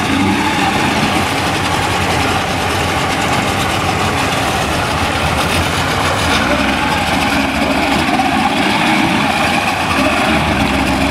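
Yamaha two-stroke tiller outboards running steadily at low speed, the propeller churning the water.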